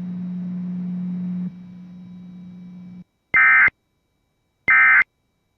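A low steady hum that drops in level about halfway through, then cuts off. After a brief silence come two short, identical bursts of Emergency Alert System SAME data tones. These bursts are the end-of-message code that closes the warning broadcast.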